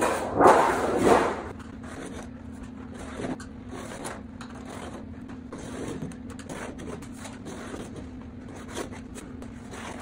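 Galvanized sheet metal being flipped over and slid on a floor mat, a loud metallic rattle for about the first second, followed by light scraping and clicking as a screwdriver is worked along the sheet's edge against a straight bar. A steady low hum sits underneath.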